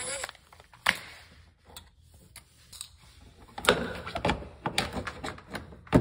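A cordless driver's motor whirs briefly at the start and stops. Then come a string of sharp plastic clicks and knocks as the refrigerator's water valve is handled and pulled free, thickest about two-thirds of the way through, with one loud knock near the end.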